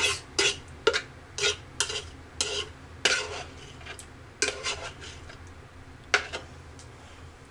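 A utensil scraping thick chicken pot pie filling out of a plastic container into a foil pie pan: a run of short scrapes and soft knocks, most of them in the first half, then a few more spaced out.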